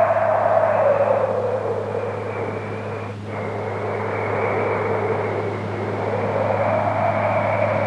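Wind howling in slow, rising and falling gusts over a steady low electrical hum, with a brief dropout about three seconds in.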